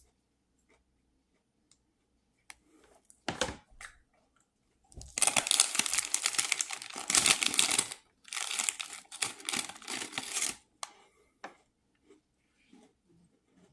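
Cookie packet being crinkled and rustled as a hand rummages in it for another shortbread cookie: a short rustle about three seconds in, then two long stretches of crackling crinkling.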